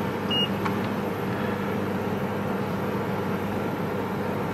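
Steady low machine hum of running bench equipment, with one short high-pitched beep from a multimeter's continuity test about half a second in.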